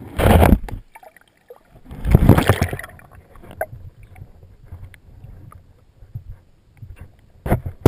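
Water sounds picked up by a camera submerged in a lake: two loud rushes of water in the first three seconds, then quieter low water noise with scattered small clicks and knocks.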